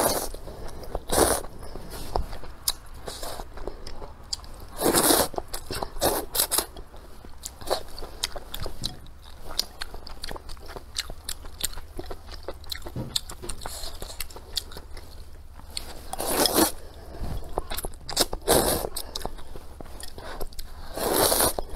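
Close-miked eating: a person slurping wide flat noodles from a spicy soup in several loud slurps, with wet chewing in between.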